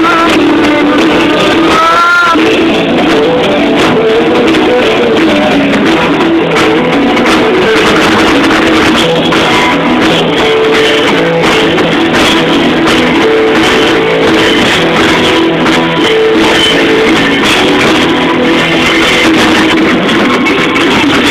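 Live rock band playing loudly on electric guitars, bass and a drum kit.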